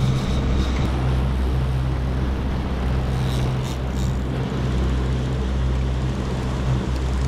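Fishing boat's engine running steadily at trolling speed: a low, even hum under a constant rushing noise.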